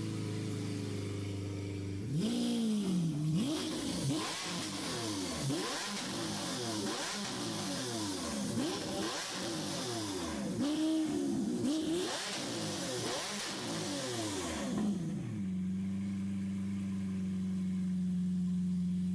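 Lamborghini Aventador S's V12 engine, still on its old exhaust before the RYFT titanium system is fitted. It idles, then is blipped a dozen or so times, about a second apart, rising and falling in pitch with each blip, and then settles into a steady idle at a higher note.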